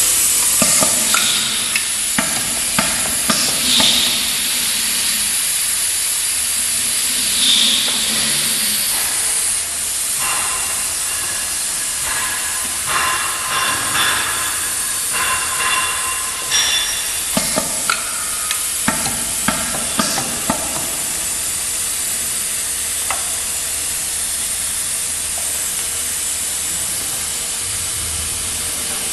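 Sticker labeling machine running: a steady mechanical hiss with irregular clicks and clacks, which come thickest about halfway through.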